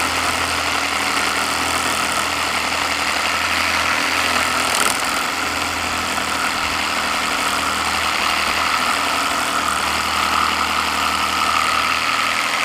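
A Meterk 20V cordless reciprocating saw with a metal-cutting blade running steadily as it saws through an old broken metal bit. It makes a continuous loud, high-pitched buzz over a low hum, and the shrill tone grows stronger near the end.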